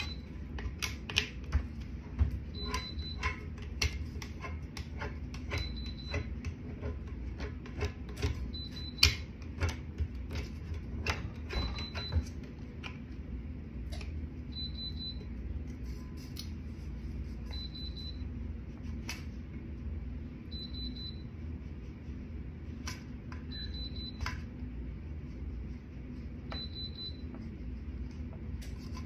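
A heat press giving a short high beep about every three seconds, its signal that it is hot and ready. Clicks and taps of hands working heat-resistant tape around a sublimation tumbler come through the first half.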